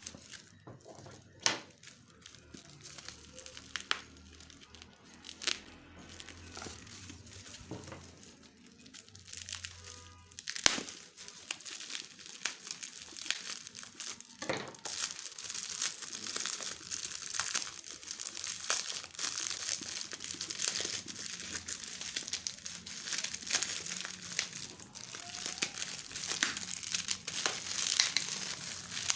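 Packaging on a new smartphone's box being opened: a few sharp taps and clicks from handling, then, from about halfway, steady dense crinkling and tearing of the wrapping.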